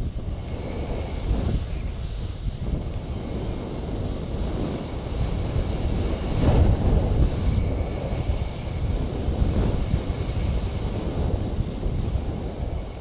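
Wind rushing over the microphone of a pole-held camera in paragliding flight, a low buffeting noise that swells about halfway through.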